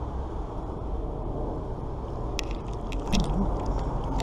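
Steady low rumble with a quick run of small sharp metallic clicks and clinks from about two and a half to three and a half seconds in, as a fishing magnet on its rope is handled at the water's edge.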